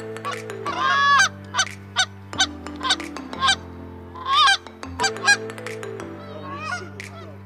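A flock of geese honking in flight overhead, call after call, loudest about a second in and again around four and a half seconds.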